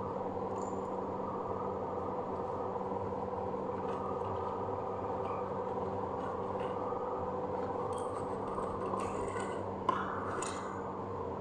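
Steady machine hum made of several held tones, with faint scattered clicks and small handling noises of slate pencils and their packaging over it, and a sharper click about ten seconds in.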